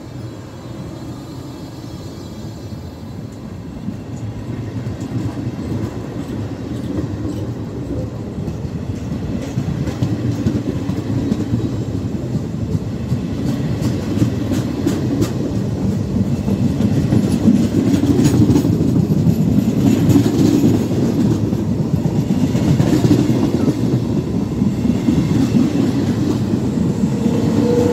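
Italian regional push-pull train of MD coaches, with an E.464 electric locomotive pushing at the rear, rolling past at close range. Its wheels rumble and click over the rail joints, and the rumble grows steadily louder as the train gathers speed and the locomotive draws near. Near the end a steady electric whine from the locomotive comes in.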